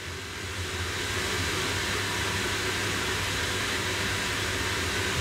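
Steady rushing noise with a low hum underneath. It swells slightly over the first second, then holds even.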